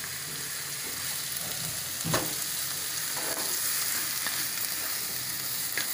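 Sliced onions and tomatoes sizzling in hot oil in a kadai, stirred with a wooden spatula to soften them. A steady frying sizzle runs throughout, with a single knock about two seconds in.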